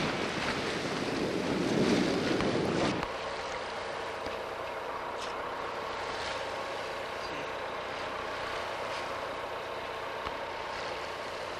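Wind buffeting the microphone over rushing sea water for about three seconds, cut off suddenly. A quieter steady mechanical hum with faint held tones follows.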